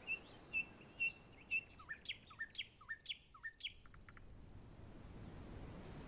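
A songbird singing: a quick run of about seven short chirps, roughly four a second, then six notes that sweep sharply downward, and a brief harsh buzz a little after four seconds in.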